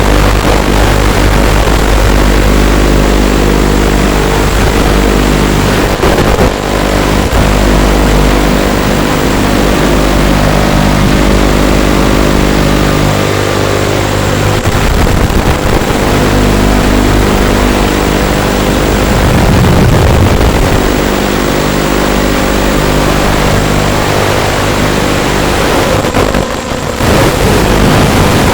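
Eachine Racer 250 quadcopter's brushless motors and propellers whining steadily in flight, with a rush of air, their pitch shifting now and then with throttle; it dips briefly near the end.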